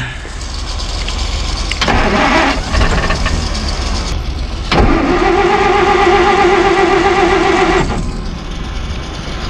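1949 Plymouth's old flathead six being cranked and starting to fire, catching unevenly but not yet running on its own. It sputters in a short burst about two seconds in, then holds a steadier wavering note through the middle, which falls away near the end.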